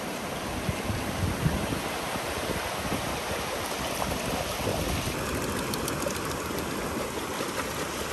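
Steady rushing noise of flowing water, with a few faint low knocks.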